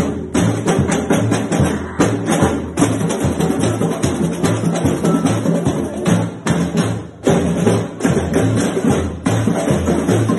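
Brazilian samba batucada percussion music: a deep bass drum pulsing about twice a second under dense, driving jingles and sharp clicking hits.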